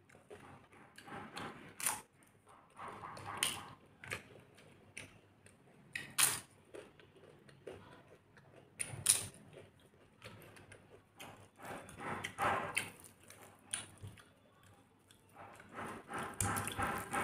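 Close-up eating sounds: several sharp, crisp crunches as a papad (thin fried lentil wafer) is bitten and chewed, between softer chewing and fingers mixing khichuri on a steel plate.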